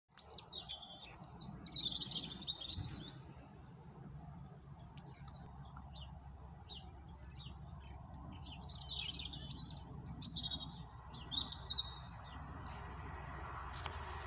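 Small songbirds twittering and chirping in two lively spells of quick, high trills, over a low steady outdoor rumble. A faint rushing sound starts to build near the end.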